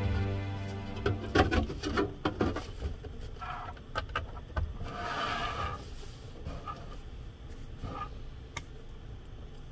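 A small plastic humidifier being handled: a cluster of light clicks and knocks as its stick is fitted into the top, then softer knocks and rubbing as its power cable is plugged in and it is set down on a wooden table.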